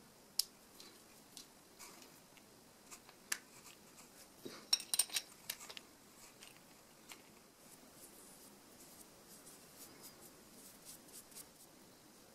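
Small clicks and taps of a plaster-cast skateboard wheel, its steel ball bearing and a metal skateboard truck being handled and fitted together by hand, with a quick cluster of sharper clicks about five seconds in and faint rubbing between.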